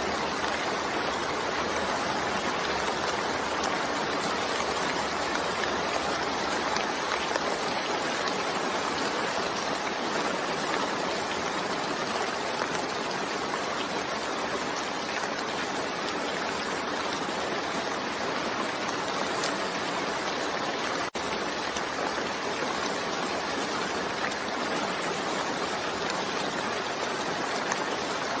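Steady, dense rainfall, an even hiss of water with no pauses. It drops out for an instant about three-quarters of the way through.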